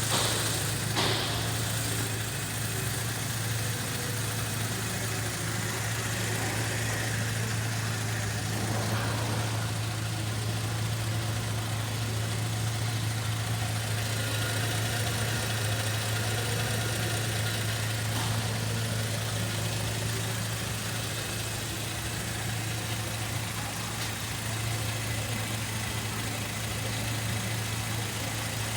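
Holden Commodore 3.6-litre V6 engine idling steadily.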